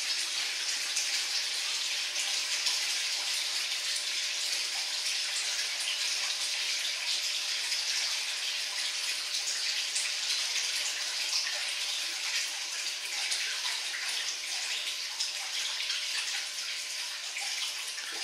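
Water from a pump's delivery pipe pouring steadily into a testing tank as the tank fills, a continuous rushing with no pauses.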